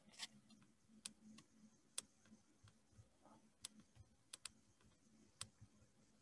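Near silence broken by about seven faint, scattered clicks from computer pointer input, as a pen tool is picked from a menu and used to write on screen.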